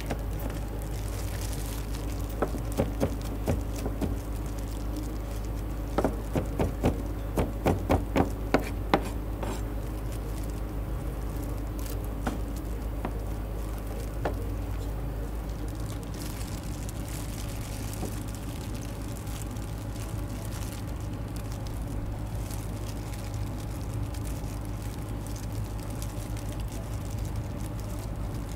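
Kitchen sounds while mie goreng is being cooked: sharp knocks, a few about two to four seconds in and a quick run of eight or so around six to nine seconds in, over a steady low kitchen hum.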